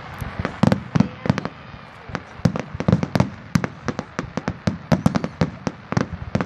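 Aerial fireworks shells bursting in a rapid, irregular string of sharp bangs, several a second, each with a deep thud.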